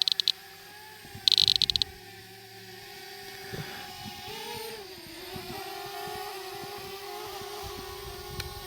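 DJI Mavic Mini drone in flight, its propellers giving a steady whirring hum that dips and rises in pitch about halfway through. Two short runs of loud, rapid high-pitched beeps come in the first two seconds.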